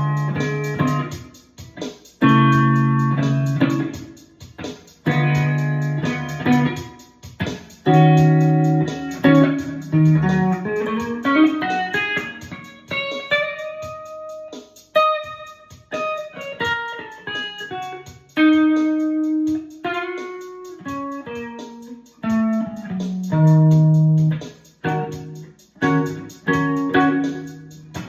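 PRS SE electric guitar, tuned a half step down, playing an instrumental blues with a walking bass line. Short repeated chords alternate with single-note runs that climb higher in the middle.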